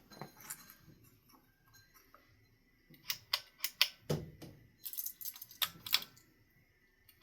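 Glass light bulbs being handled and screwed into a ceiling fan light kit's sockets: a scatter of small clicks and ticks, with one duller knock about four seconds in.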